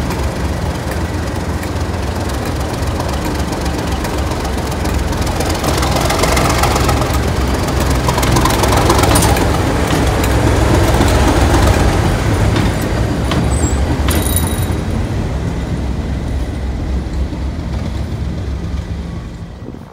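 Class 37 diesel locomotive's English Electric V12 engine running with a steady low drone as the locomotive rolls past. The sound grows louder as it comes closest, then fades as it moves away near the end.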